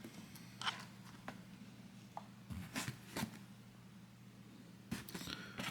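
Faint handling noises: a few scattered soft clicks and rustles, growing busier near the end, over a low steady hum.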